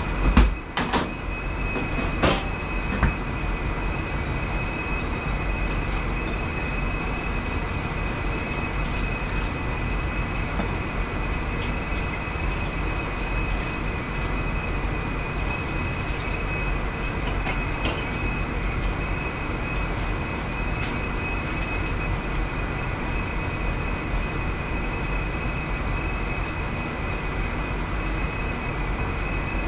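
Steady loud noise of a commercial kitchen's exhaust hood and equipment, with a thin high whine held throughout. A few sharp clinks of metal utensils and cookware come in the first three seconds.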